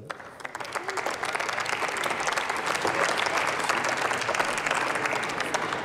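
Round of applause from members of parliament in the plenary chamber, building over the first second or two and thinning out near the end.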